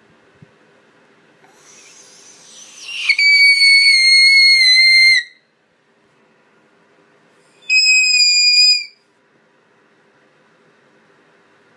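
A teenage boy's very high-pitched screams, squeezed up into a whistle-like squeal. After a breathy rising lead-in he holds one loud, steady squeal for about two seconds, then after a pause gives a second, shorter one a little higher.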